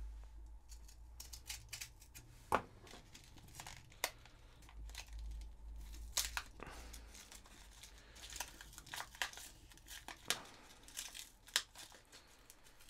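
Lure packaging being pried open by hand: the card backing and plastic crinkling and tearing, with scattered sharp clicks and snaps, the sharpest about two and a half seconds in.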